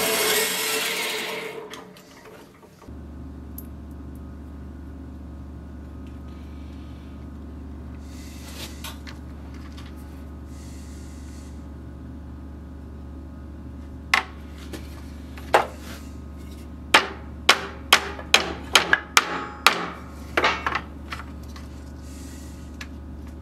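Blacksmith's hammer striking steel on an anvil while forging a knife: about a dozen sharp, ringing blows starting about fourteen seconds in, coming quickest in the second half, over a steady low hum. A loud buzzing machine noise dies away in the first two seconds.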